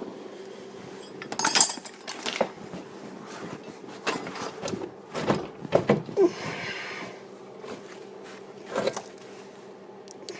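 Chain and steel pry bar clinking and clanking against the control arm as the bar is levered down to pull a worn ball joint out of the steering knuckle. The clanks come irregularly, with a cluster in the middle and the loudest a second and a half in.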